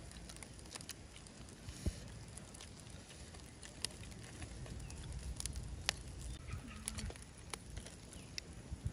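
Quiet eating sounds: chopsticks clicking now and then against the foil and grill, with chewing.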